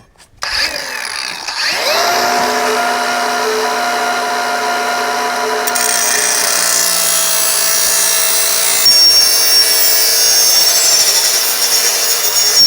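AEG power tool spinning up and then cutting through a mountain bike handlebar to shorten it. Its motor tone rises about half a second in and then runs steadily. From about halfway through, the cut turns harsher and hissier, with a high whine near the end.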